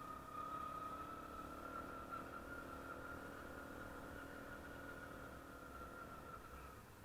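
Small 72cc ATV engine running at a fairly steady speed, faint. Its pitch rises slightly in the first second and then holds.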